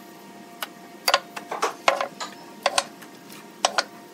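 Loose wooden offcuts and boards clacking and knocking against each other as someone steps onto a scrap-wood pile and shifts pieces in it. About ten sharp, irregular wooden clacks, some in quick pairs.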